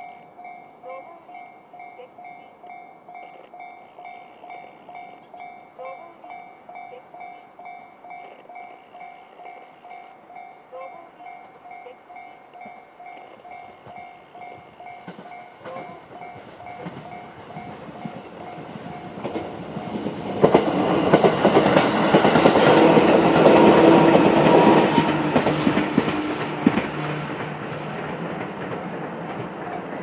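Japanese level-crossing warning bell (JR standard sound) ringing steadily, one electronic ding after another, while the crossing is closed. About twenty seconds in, a JR 211-series electric train passes at speed, loud wheels and running gear on the rails drowning the bell, then fading near the end.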